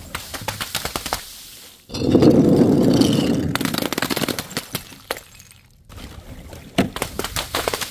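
Liquid-filled balloons knocking and clattering down a wooden chute and splatting onto pavement: a run of quick knocks, a loud wet splash of impact about two seconds in that lasts over a second, then more knocks and one sharp crack near the end.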